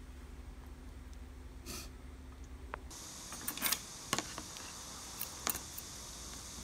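A metal spoon clinking a few times against food containers, as sharp light clicks over a faint steady hiss.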